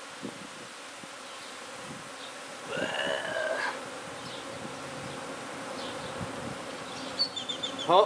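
Steady buzzing of a honey bee swarm clustered on and around an open hive box. A brief louder pitched sound comes about three seconds in, and a few short high chirps near the end.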